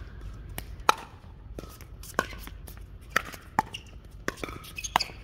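Pickleball rally: paddles striking a hard plastic pickleball with sharp pops, about six hits at an uneven pace of roughly one every half second to a second, the loudest about a second in.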